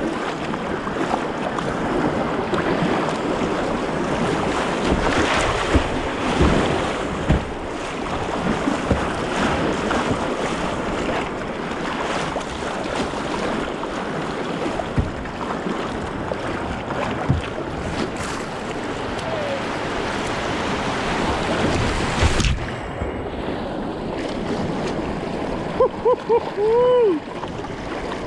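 River water rushing over rocks through a riffle, heard from a kayak's bow, with wind on the microphone and occasional splashes. Late on the rush turns duller, and near the end come a few short pitched calls that rise and fall.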